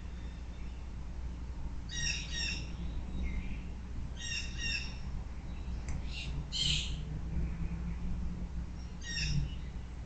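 Crows calling: a pair of short caws about two seconds in, another pair about four seconds in, a rougher call between six and seven seconds, and one more caw near the end.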